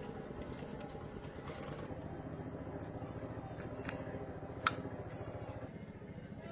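A steady, low, evenly pulsing machine hum with a few sharp metallic clicks and taps over it, the loudest a little past the middle.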